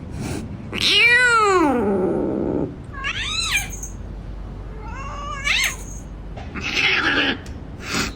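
Cat meowing: one long drawn-out meow that rises and then falls in pitch, followed by two shorter meows. Near the end come two brief breathy, hiss-like bursts.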